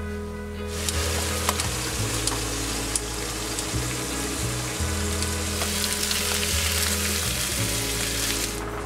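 Fish frying in oil in a pan on a gas stove: a steady sizzle that starts about a second in and stops just before the end, with a few sharp clicks of the spatula against the pan.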